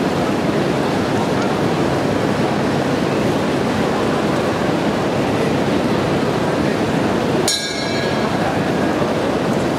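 Arena crowd noise: a steady, loud roar of many voices on a small camera microphone, with a short sharp click and a brief dip about seven and a half seconds in.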